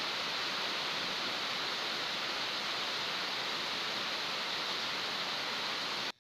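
A steady, even hiss that cuts off suddenly just before the end.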